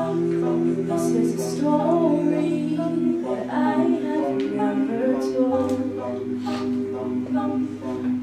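A cappella group singing: backing voices hold sustained chords under a female lead vocal, and a low bass note comes in about two-thirds of the way through.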